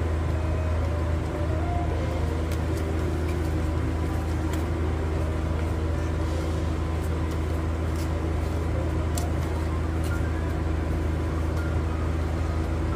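A steady low hum throughout, with a few faint clicks of stiff photocards being fanned and shuffled in the hands.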